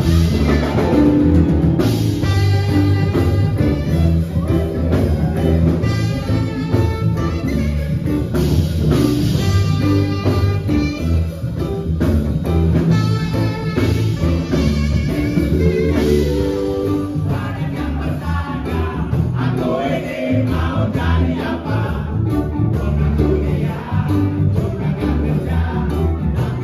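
Music with a steady bass line and singing.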